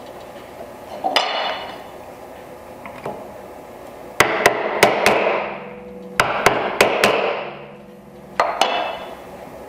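Chisel struck with a mallet, chopping waste out of dovetail sockets in a board: sharp wooden knocks, mostly in quick groups of three or four, each followed by a brief ringing tail.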